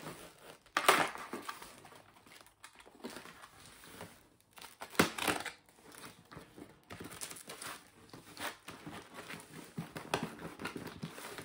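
Cardboard shipping box and its packaging being pried and torn open by hand: irregular crinkling and rustling, with two louder sharp rips about a second in and about five seconds in.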